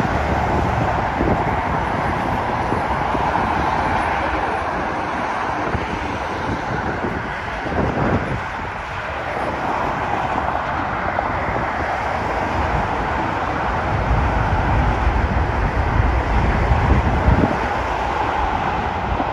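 Jet airliner's engines at takeoff thrust heard from a distance, a steady rushing noise mixed with road traffic, the deep rumble swelling in the last few seconds as the plane climbs out.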